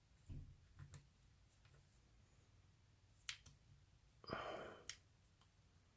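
Near silence with a few faint clicks from padlock parts being handled, one sharper tick about three seconds in, and a breathy sigh about a second later.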